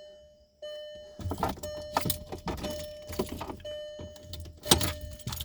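Used electric windshield wiper motor from a 2006 Volkswagen Jetta TDI, plugged into the car's wiper circuit to test it. It runs with a steady whine under rattling clicks and knocks, starting about half a second in.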